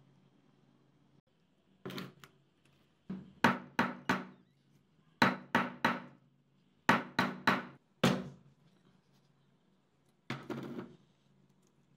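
An electric fan motor's metal housing knocked down against a wooden block again and again to jar the stator core loose. About fifteen sharp knocks come in quick runs of three or four, with a last single knock near the end.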